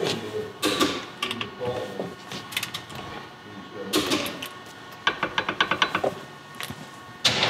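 Metal clicks and knocks from a torque wrench on the bearing cap bolts of a Toyota third-member differential, tightened to 90 ft-lb, with a quick run of about ten clicks a little after five seconds in.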